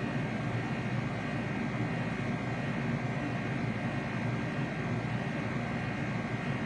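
Ruud 80-gallon hybrid heat pump water heater running in heat pump mode: a steady drone from its compressor and fan, with a faint high whine over it.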